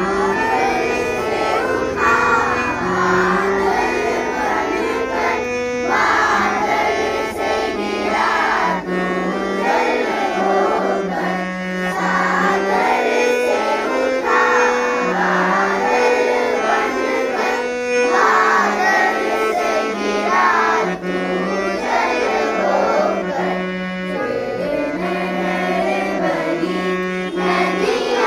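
A school music band performing a song: voices singing a melody over instruments, with held reedy notes and a bass line that steps between a few pitches.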